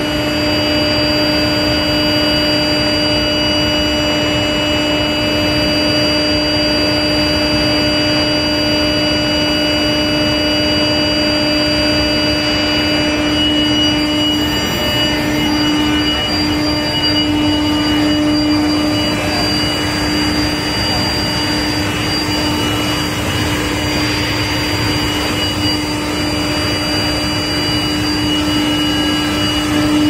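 Long-bar induction hardening and tempering line running: a steady, loud industrial drone with a held low hum and several steady high whines over it.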